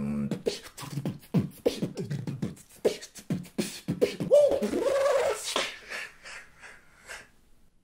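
Solo a cappella human beatbox: rapid percussive mouth sounds, with a pitched, gliding vocal line about four seconds in. The hits thin out and stop shortly before the end.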